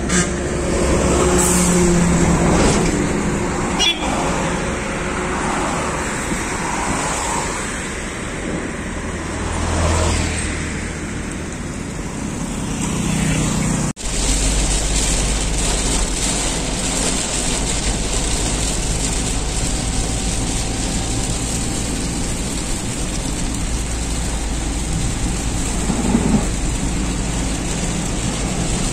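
Highway traffic heard from a moving car, with vehicles passing close by. After a sudden cut about halfway through, the car gives a steady rush of road and tyre noise with a low rumble while driving in the rain.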